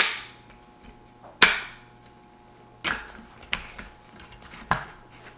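Sharp metallic clicks and snaps from an AR-15 rifle as the upper and lower receivers are closed together and the front takedown pin is pushed home: about five separate clicks, the loudest about one and a half seconds in.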